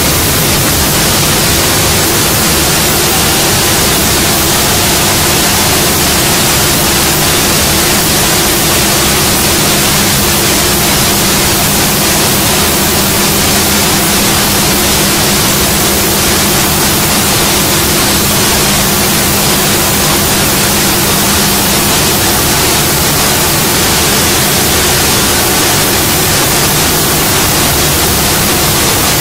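Three-head CNC router's spindle running and milling an MDF door panel: a loud, steady hiss with a steady low hum underneath.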